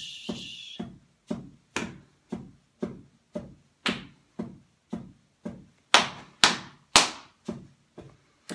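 Percussion beat of a song's backing track: evenly spaced drum hits, about four a second, with three louder, ringing hits about six to seven seconds in.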